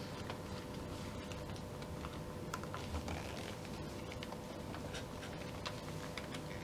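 Light, irregular clicks and rustles of hands working the laces and straps of a glossy black Pleaser Flamingo-800-20 lace-up platform bootie as it is put on, over a faint steady hum.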